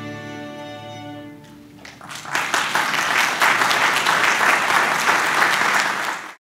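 A fiddle orchestra's final held chord of bowed strings fades away over the first second and a half, then the audience breaks into applause, the loudest part, which cuts off abruptly near the end.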